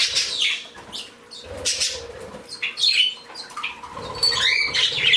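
Small pet birds, parakeets and a canary, chirping and tweeting irregularly, with short flurries of flapping wings.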